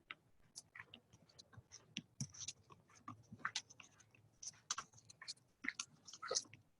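Close-up crunching of a raw snap pea being chewed: irregular soft crackles and clicks with no steady rhythm.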